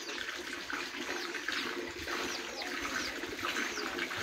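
Steady rush of running water, with a short high whistle that falls in pitch repeating about twice a second over it.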